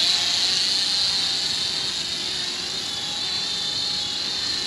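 ATTOP X-Pack 10 mini quadcopter drone in flight, its small propellers giving a steady high-pitched whine that wavers slightly in pitch as it manoeuvres.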